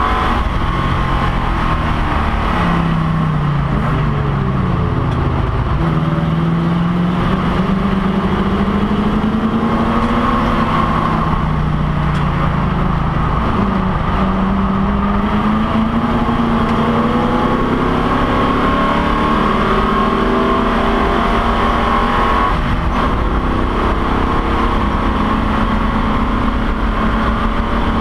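Race car engine at racing speed, heard from inside the stripped, roll-caged cockpit. The engine note climbs in long pulls and drops sharply twice, about halfway through and again late, as the driver shifts or lifts.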